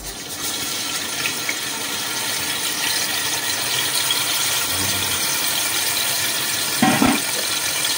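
Ginger-garlic paste sizzling in hot oil in a pan, a steady hiss.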